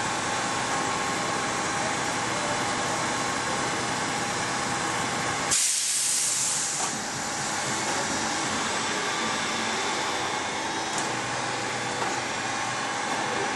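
Steady running noise of a large Kekeisen CNC milling machine. About five and a half seconds in, a sudden loud hiss lasts just over a second.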